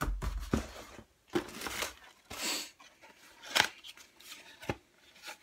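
Packaged electronics and cardboard being handled in a box: irregular rustling, crinkling and scraping of packaging, with a dull thump at the start and a couple of sharp knocks of boxes being set down or tapped later on.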